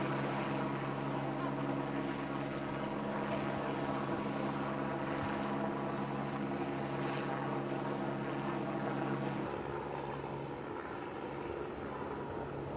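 Steady engine drone with several held low tones, cutting off about nine and a half seconds in and leaving a rough noisy background.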